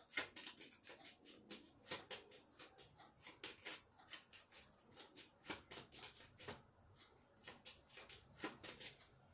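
A deck of playing cards being shuffled by hand: a faint, irregular run of quick card snaps and slides, easing off briefly about two-thirds of the way through.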